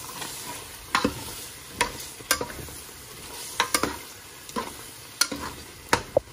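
Metal spoon scraping and knocking against a metal pot as chicken masala is stirred while it fries, over a steady sizzle of the chicken frying in the ghee it has released.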